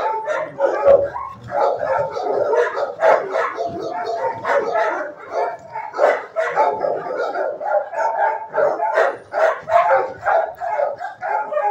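Many dogs barking in shelter kennels, the barks overlapping with hardly a pause.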